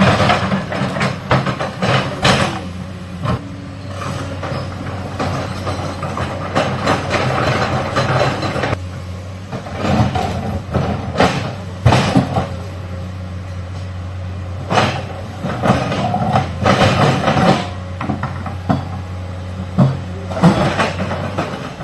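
Excavator's diesel engine running steadily under load, with irregular clanks and scrapes of the bucket working rock and soil.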